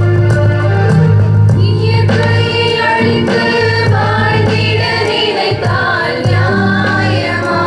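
A group of voices singing a song over electronic keyboard accompaniment; the keyboard plays alone at first and the singers come in about a second and a half in.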